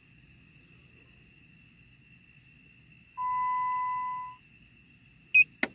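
An electronic beep: one steady tone a little over a second long, about three seconds in, over a faint steady high whine. Two sharp clicks near the end.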